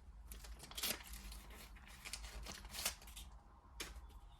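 Faint rustling and clicking of trading cards being handled and flipped through, with a few sharper snaps.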